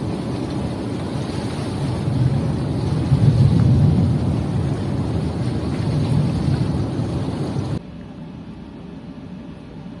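Steady low rumble of a boat's engine running, with wind noise on the microphone. Near the end it cuts off suddenly to a much quieter hiss.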